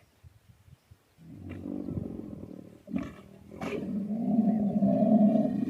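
Camel calling with two long, low calls during the mating season, the second louder and lasting about two seconds.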